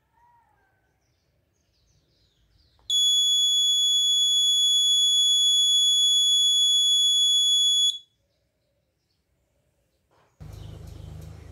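Electronic piezo buzzer sounding one steady, high-pitched beep for about five seconds, then cutting off suddenly: the Arduino bell timer's fourth scheduled bell, triggered on the minute by the real-time clock.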